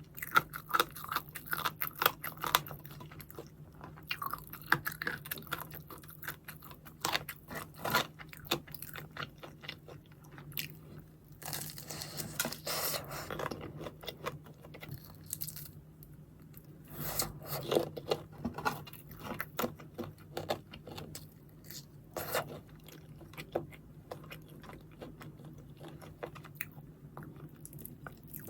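Close-miked crunchy chewing and biting of fried chicken, with crisp crackles and crunches that come thickest about halfway through. A faint steady hum runs underneath.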